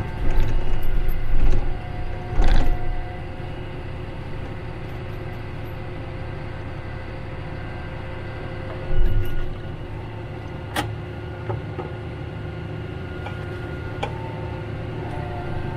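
John Deere tracked tractor's engine running steadily, heard from inside the cab, with a few knocks and clunks in the first three seconds, a thump about nine seconds in and a sharp click near eleven seconds.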